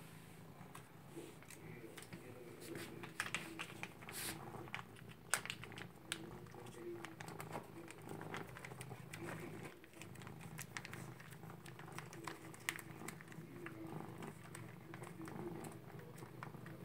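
Cat eating wet food from a plastic pouch held in a hand: quick, irregular wet licking and chewing clicks over a faint, steady low purr.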